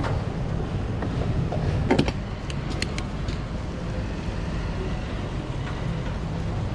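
Fuel dispenser nozzle and filler cap being handled while refuelling a car: sharp metallic clicks at the start and about two seconds in, then the nozzle sits in the filler neck over a steady low hum.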